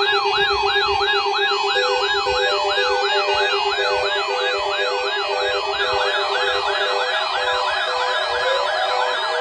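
Layered electronic siren tones: a fast up-and-down wail about twice a second over steady hums and a pulsing beep. More overlapping sweeps join about six seconds in.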